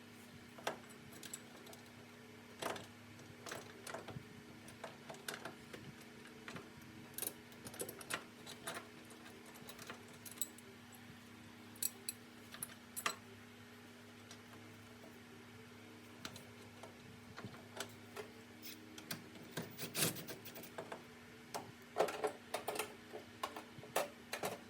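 Irregular metallic clinks and taps of hand tools and hardware during mechanical work, busiest near the end, over a steady low hum.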